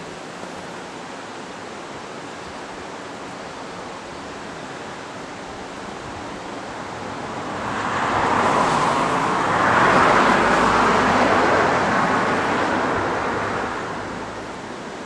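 A vehicle passing on a road, its tyre and engine noise swelling up about halfway through and fading away near the end, over a steady rushing background noise.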